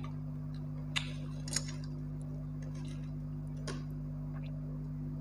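Eating by hand: a few sharp clicks and crackles, three of them clear, at about one, one and a half and nearly four seconds in, from fingers picking at charred roasted dried fish and from chewing. A steady low hum runs underneath.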